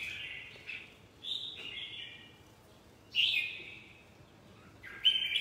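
Red-whiskered bulbul singing a run of short, warbled phrases with pauses between them.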